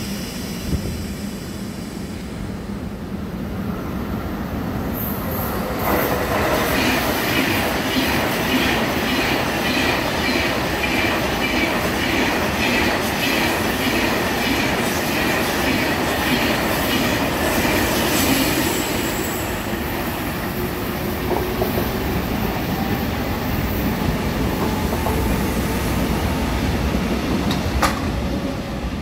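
Seoul Metro Line 1 rheostat-controlled electric train passing close by. It grows loud about six seconds in, with a steady high whine and wheels clacking over rail joints about twice a second, then eases after about twenty seconds as the last cars go by, with one sharp clack near the end.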